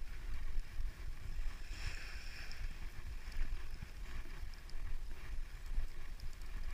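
Wind rumbling steadily on the microphone, with a faint hiss above it.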